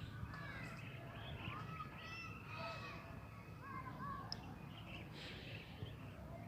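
Many birds chirping and calling over one another, faint, over a low steady background rumble.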